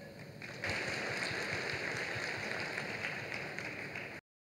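Audience applauding, starting about half a second in and cut off suddenly near the end.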